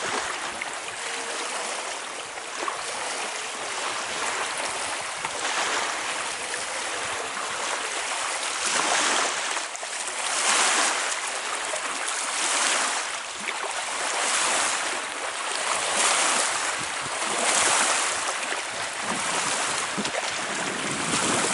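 Small waves washing onto a lakeshore from wind-driven chop, a steady rushing that from about halfway through swells and falls about every two seconds.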